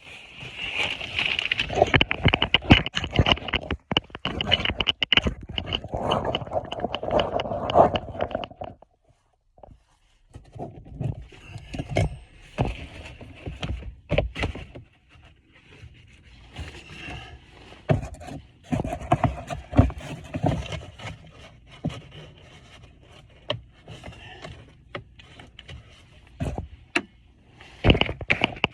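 Scraping and rustling of a person crawling over plastic sheeting in a crawl space while wearing rain gear. It is dense and continuous for the first several seconds, pauses briefly, then goes on as scattered scrapes and knocks.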